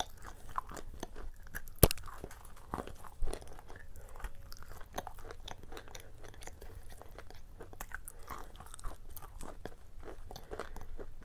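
Close-miked chewing of a crunchy shortbread cookie dipped in paste, with many small crisp crunches. A sharp crack just under two seconds in is the loudest sound.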